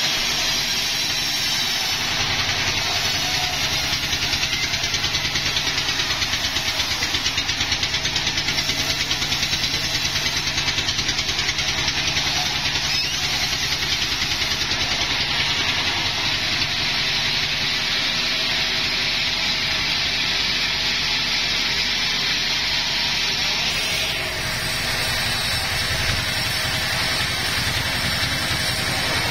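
Sawmill machinery running: a steady engine drone with a fast, even pulse under a bright high hiss. The high part of the sound drops away about 24 seconds in.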